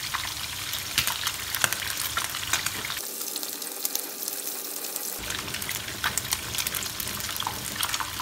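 Pomfret steaks shallow-frying in hot oil in a pan: a steady sizzle with frequent pops and crackles.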